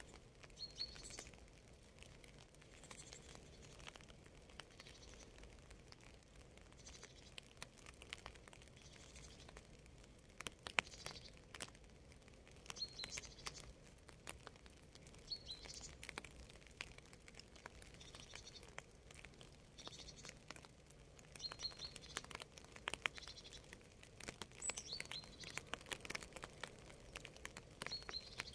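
Quiet, steady light rain, with individual drops ticking close by. A small bird gives a short high chirp every few seconds.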